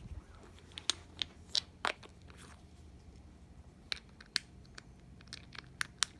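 Irregular sharp clicks and light clacks of a flashlight being handled while its batteries are swapped, about a dozen in all, bunched near two seconds in and again near the end.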